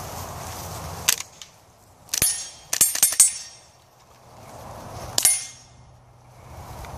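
About seven rifle shots from an AR-15-style carbine, fired while walking. There is a single shot about a second in, a quick string of four or five shots around two to three seconds in, and one more shot near the five-second mark.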